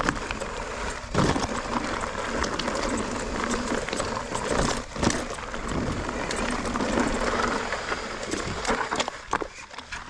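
Mountain bike riding over rough, rocky singletrack: a steady rushing noise of tyres and wind on the microphone, with many sharp knocks and rattles as the bike hits rocks.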